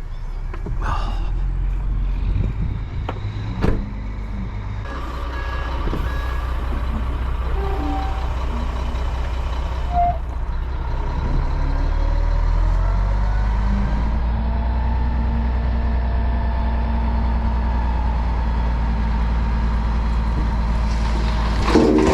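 Dump truck backing up with its reverse beeper sounding, over the steady low running of a diesel engine. A short, louder burst of noise comes near the end.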